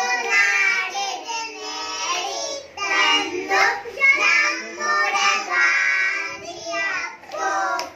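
A small group of young children singing together into a microphone, in short phrases with brief breaks between them.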